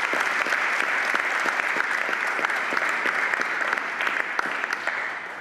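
A congregation applauding: a dense patter of many hands clapping that dies away near the end.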